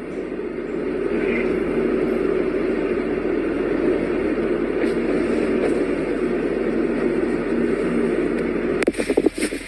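A vehicle running steadily, a constant low rumbling noise. Near the end it cuts abruptly to a choppier, irregular sound.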